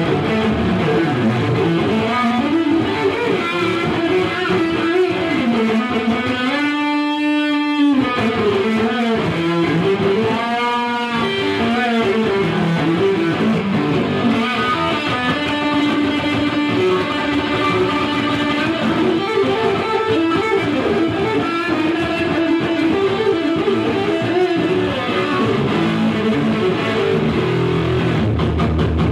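Electric guitar played through a Marshall amplifier turned up to 10: a run of picked notes and phrases, with a long held note about seven seconds in and another shorter one a few seconds later.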